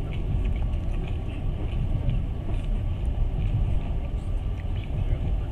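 Passenger train carriage running along the rails, heard from inside the car: a steady low rumble with faint scattered clicks.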